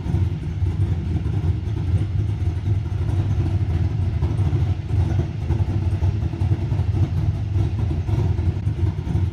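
An engine running steadily with a low, rough rumble.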